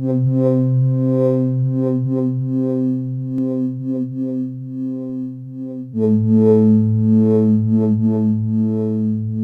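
Ambient Eurorack modular synthesizer music: a sustained low drone chord that starts abruptly, with shorter notes repeating above it. About six seconds in, the chord steps down to a lower root.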